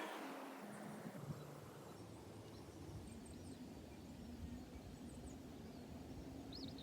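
Quiet outdoor ambience: a low steady rumble with a few faint, short high chirps, likely birds. A louder passing noise fades out in the first second.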